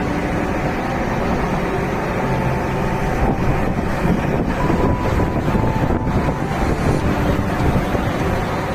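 Steady rumble of a boat engine mixed with wind on the microphone and rushing water.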